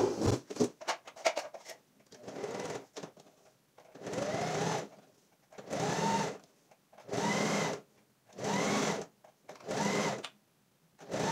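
Household electric sewing machine stitching fabric in six or seven short runs of about a second each, stopping between them; the motor's pitch rises as each run starts. Clicks and fabric handling come in the first second or two.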